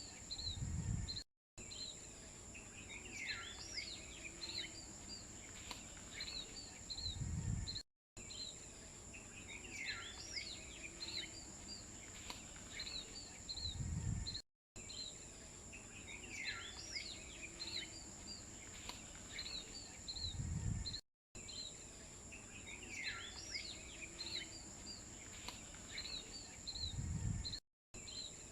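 Birds chirping over a steady high insect drone. The same short stretch repeats about every six and a half seconds as a loop, each pass ending in a low thump and a brief cut to silence.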